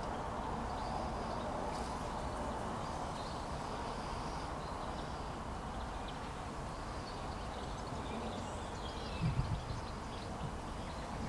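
A gentle breeze rustling through tree leaves, a steady rush with wind buffeting the microphone in a short gust about nine seconds in. Faint bird chirps come through above it.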